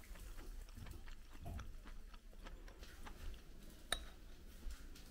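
Quiet tableware sounds: scattered soft clicks, then one sharp clink with a short ring about four seconds in, a utensil striking a ceramic dish.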